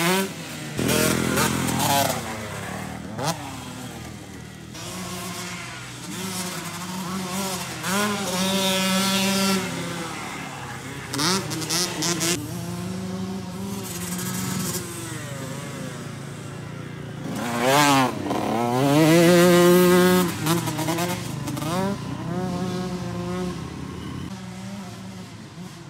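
Kawasaki KX125 single-cylinder two-stroke dirt bike engine revving up and down repeatedly as it is ridden, heard from the side of the track. It is loudest about three-quarters of the way through, rising then falling in pitch as it passes close by.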